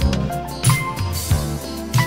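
1980s Japanese city-pop song playing: a steady mid-tempo drum beat, with a kick about every two-thirds of a second and cymbals, under held keyboard and guitar notes.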